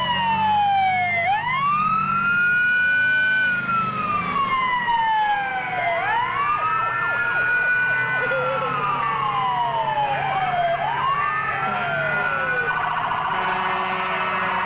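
Ambulance siren wailing in a slow rise and fall, about three cycles, with other sirens overlapping and a steadier siren tone joining near the end; vehicle engines run underneath.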